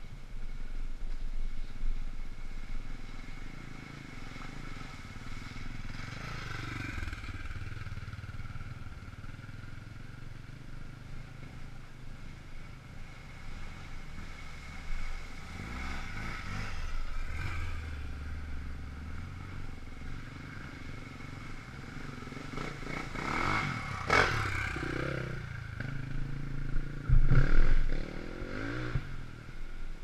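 Dual-sport dirt bikes riding one after another through a muddy trail section, each engine revving up and down as it passes, in several separate surges; the loudest comes near the end.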